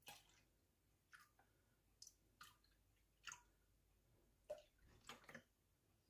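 Faint, irregular glugs and splashes of milk pouring from a carton into a stainless Thermomix mixing bowl: a string of short separate blips, the loudest about four and a half to five and a half seconds in.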